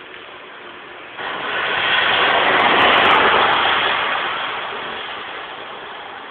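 A vehicle passing on a wet road: the hiss of tyres on the wet surface comes in suddenly about a second in, peaks near the middle and slowly fades away.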